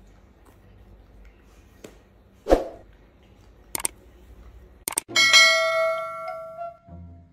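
Sound effect of an on-screen subscribe button and notification bell: a sharp thump, then quick clicks, then a bell chime that rings out and fades over nearly two seconds.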